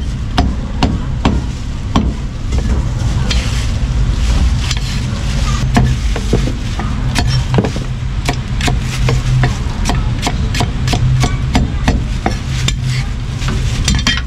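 A heavy steel cleaver chopping food on a thick round wooden chopping block, in a quick, irregular run of sharp knocks. A steady low hum runs underneath.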